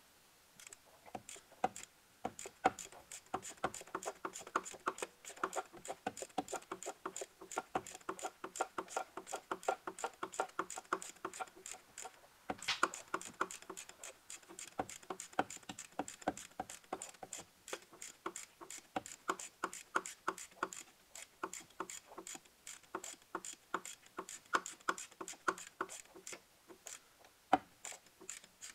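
Ratchet wrench clicking rapidly and evenly as a bolt is run in, with a short break about halfway through and another near the end.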